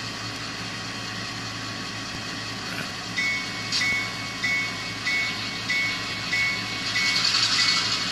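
Sound decoder in an Athearn Genesis GP38-2 model locomotive playing a diesel engine idling with a steady hum. About three seconds in, the locomotive bell starts ringing, roughly one and a half strikes a second, with spells of air hiss.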